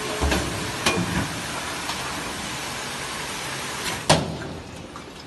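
Water-jug washing and filling machine running with a steady hiss and several knocks and clunks. The loudest clunk comes about four seconds in, after which the hiss eases.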